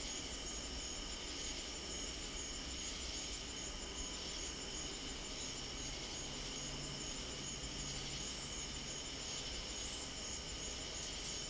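Crickets chirping in a steady chorus of high, rapid pulses, over a faint hiss.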